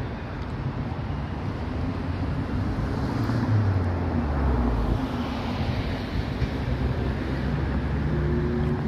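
Engine running with a steady low hum over a continuous rumble; a deeper drone swells and then falls away about three to five seconds in.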